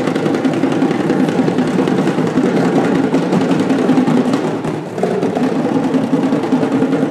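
Djembe-style hand drums played in a fast, steady rhythm as live music, with a steady pitched sound underneath; the sound dips briefly just before five seconds in, then picks up again.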